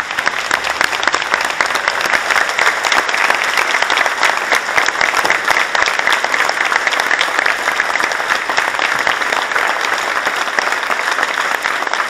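Crowd applauding: a dense, steady round of clapping from many people.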